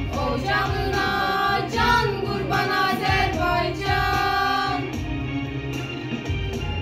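Young girls singing a song together over a musical accompaniment, holding long sung notes.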